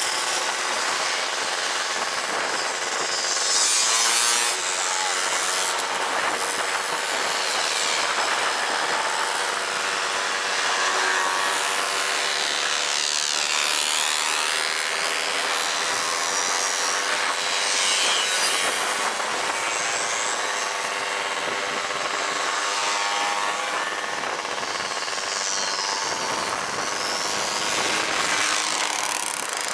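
A group of small two-stroke mopeds riding together, a steady buzz of many little engines, with the pitch sweeping up and down a few times as individual mopeds pass close.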